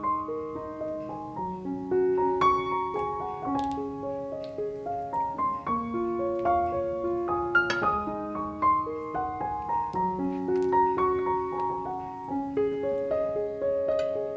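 Background piano music: a gentle, unbroken run of single notes and broken chords.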